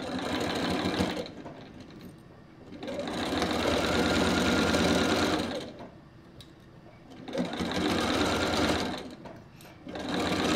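Bernina sewing machine stitching a seam through quilt pieces in short runs, stopping and starting, about four runs in all, the last still going at the end.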